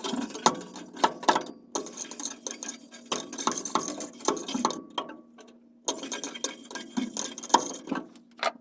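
Metal furnace parts and hand tools clinking, tapping and rattling in an irregular run of sharp knocks, over a faint steady hum.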